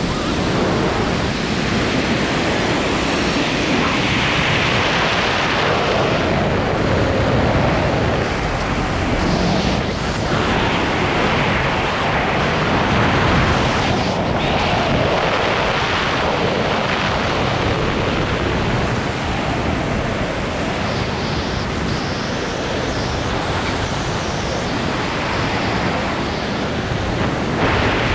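Steady rush of airflow buffeting a wingsuit flyer's camera microphone in freefall: a loud, even wind noise that rises and falls slightly.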